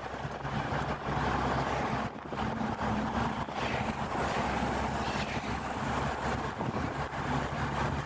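Engine and road noise heard from inside a moving vehicle: a steady low engine drone under continuous tyre and wind noise.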